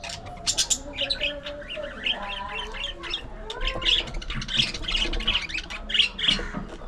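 Budgerigars chattering: a dense, continuous run of short squawks and chirps mixed with gliding, warbled notes.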